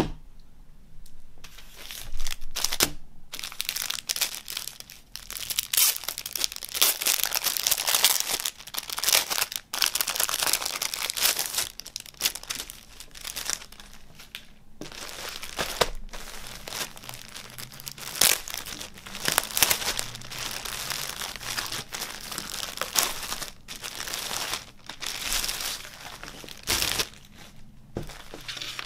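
Thin plastic packaging being crinkled and pulled apart by hands, in long uneven bursts of rustling with short pauses, as a folded T-shirt is unwrapped from its plastic bag.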